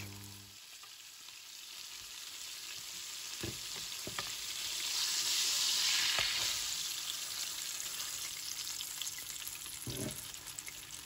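Floured salt cod steak sizzling as it fries in olive oil in a nonstick pan, the sizzle swelling to its loudest around the middle. A few light clicks as metal tongs turn the fish against the pan.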